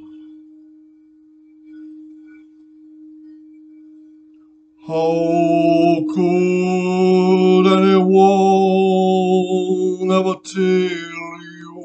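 A crystal singing bowl rings a steady tone, and about five seconds in a man's voice joins with long held vocal tones rich in overtones, breaking off briefly twice and fading out near the end.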